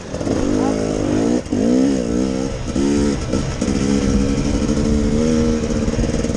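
Enduro motorcycle engine revving up and down in short spurts while the bike picks its way along a rough trail, then holding a steady pitch from about four seconds in.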